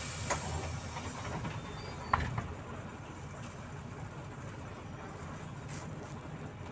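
Cabin noise of a Volzhanin-5270 city bus under way: a steady low engine and road drone with light body rattles, and one sharp knock about two seconds in.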